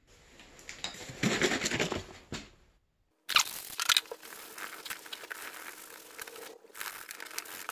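Cloth rag rubbing and wiping across a vinyl snowmobile seat: a scratchy rustling in two stretches, broken by a short gap about two and a half seconds in.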